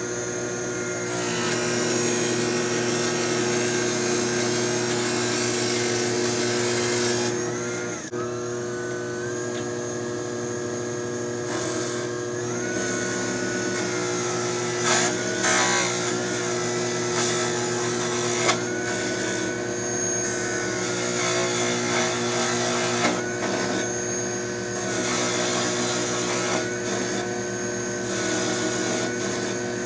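Cue lathe running while a cutter works the maple cue handle, cutting a tenon. A steady motor hum runs under a higher whine that dips and recovers several times as the cut loads it, with a cutting hiss that comes and goes.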